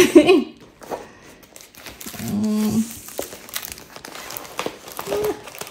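A large diamond painting canvas being unrolled by hand, its stiff canvas and plastic cover film crinkling and rustling. A brief hum of voice comes about two seconds in.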